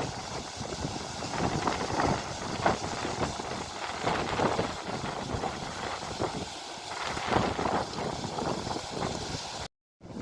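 Wind buffeting the microphone outdoors: a continuous rushing noise with irregular gusts. The sound cuts out for a moment near the end.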